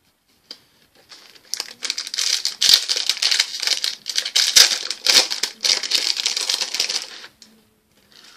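Plastic wrapper of a hockey card pack crinkling as it is handled and torn open, a dense crackle lasting about six seconds.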